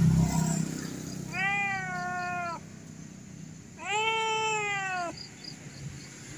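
Domestic cat meowing twice, two long drawn-out meows of about a second each, the second a little louder.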